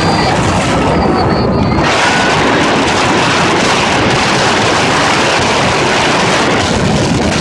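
Loud, steady rushing of wind buffeting the microphone.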